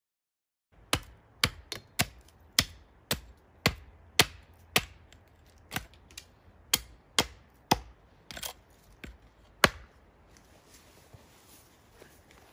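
A hickory-handled Norlund Hudson Bay hatchet chopping into a wooden stump, about seventeen sharp blows at roughly two a second. The blows stop about ten seconds in, leaving only a faint background.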